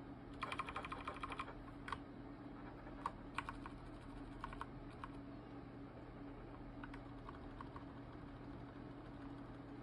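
Computer keyboard keys being tapped: a quick run of taps about half a second in, then scattered single taps, over a faint steady hum.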